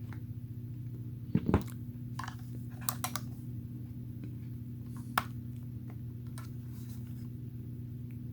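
A few light clicks and knocks of the power bank being handled, the loudest about a second and a half in and a sharp single click about five seconds in, over a steady low electrical hum.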